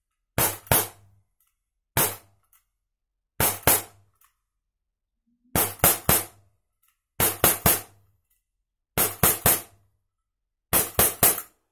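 ISSC M22 4.5 mm CO2 blowback BB pistol fired rapidly in quick bursts of two to four sharp shots, each with the snap of the slide cycling.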